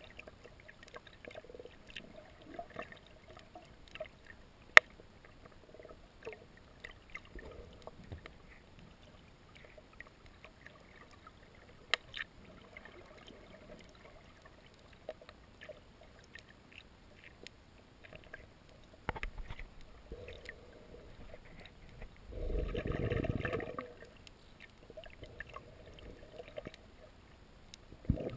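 Underwater ambience: scattered clicks and crackles, with a sharp click about five seconds in and another about twelve seconds in. Near the end come two bursts of rushing, gurgling water noise, the second starting just before the end.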